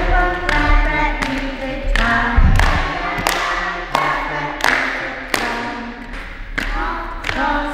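A group of young children singing a song together, keeping a steady beat with hand claps about every two-thirds of a second. A low thud comes about two and a half seconds in.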